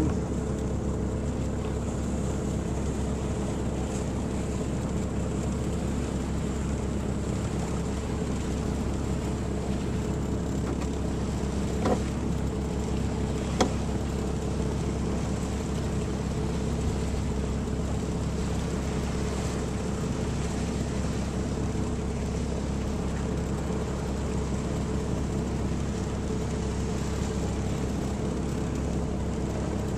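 Steady wind and water noise aboard a sailboat under way, with a faint steady hum underneath. Two brief knocks come about twelve and thirteen and a half seconds in.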